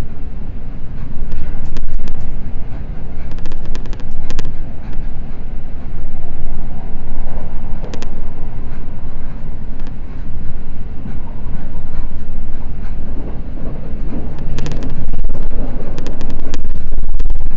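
Limited express train running at speed, heard from inside the carriage: a steady low rumble of wheels on rail with clusters of sharp clacks from rail joints and points, the densest near the end.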